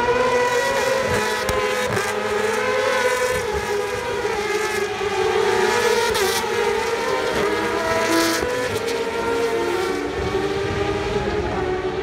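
Several racing motorcycles passing in a stream, their high-revving engine notes overlapping. The pitch climbs in the first second and then shifts up and down as the bikes come by.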